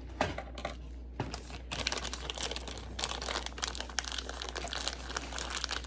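Plastic packaging of insulin syringes crinkling and rustling as it is handled, a dense run of small crackles from about a second in.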